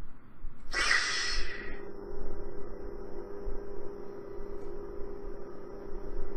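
Custom lightsaber's Nano Biscotti sound board igniting with a short whooshing burst about a second in, then the saber's steady electronic hum, played through its built-in speaker.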